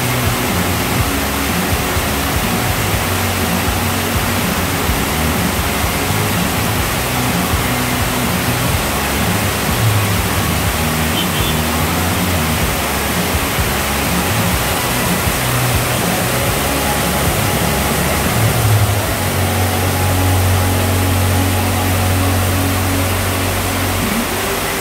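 Heavy downpour pouring steadily onto a flooded road, a dense even hiss. Beneath it a low hum comes and goes, holding steady for the last few seconds.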